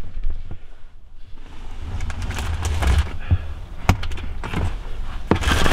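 Rustling handling noise and scattered knocks, a sharp one about four seconds in, over a steady low rumble.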